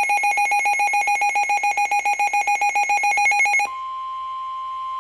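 Weather radio receiver (WR-400/WR-300) sounding its alert: a rapid, high pulsing trill of beeps, about ten a second, that gives way about three and a half seconds in to the steady single-pitch NOAA Weather Radio warning alarm tone, which signals that a warning follows.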